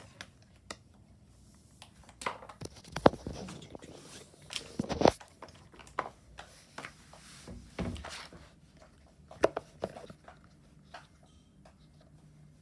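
Irregular clicks, taps and knocks of plastic and silicone fidget toys being handled and set down, a few louder knocks among them.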